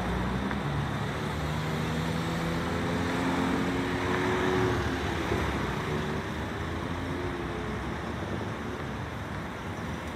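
B-class tram pulling away, its traction motors giving several low tones that rise slowly as it gathers speed, over steady road noise. After about six seconds the tones fade and passing cars carry on.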